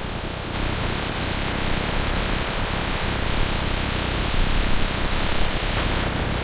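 Steady hissing noise with a low hum underneath.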